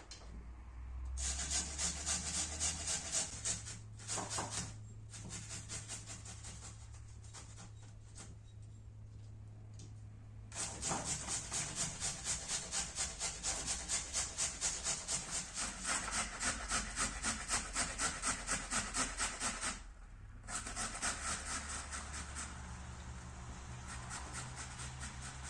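Food being grated by hand on a grater: steady back-and-forth rasping strokes, about two to three a second, with a couple of short pauses.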